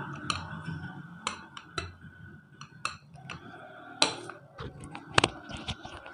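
Scattered light knocks and clicks of a rolling pin on a pastry board as dough is rolled out and the pin is set down, with a few sharper knocks about four and five seconds in.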